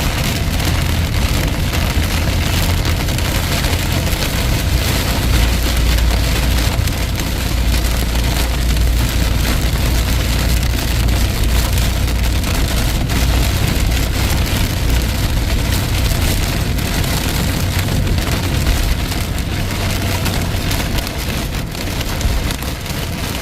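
Very heavy rain mixed with hail pelting down, a dense, steady patter of countless small hits over a low rumble.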